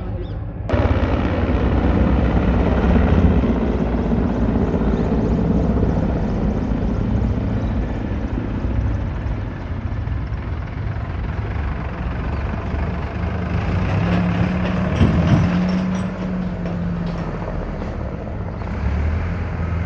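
Helicopter running: a steady, loud engine and rotor noise that comes in abruptly under a second in.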